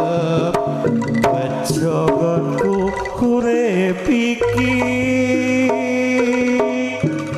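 Live Javanese jaranan music: drum strokes keep the beat under a bending melody, which holds one long note from about halfway through.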